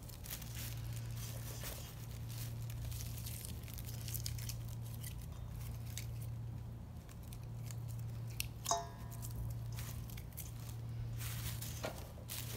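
A hand tossing sliced onions, diced potato and chopped herbs in a stainless steel bowl, making soft rustling and crinkling. One sharp ringing ping of the steel bowl comes about two-thirds of the way in, over a steady low hum.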